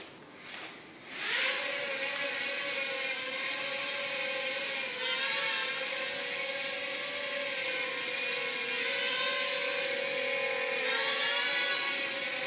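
Mini quadcopter's four small motors and propellers spinning up about a second in, then a steady high whine while it flies and hovers, the pitch wavering slightly as the throttle changes.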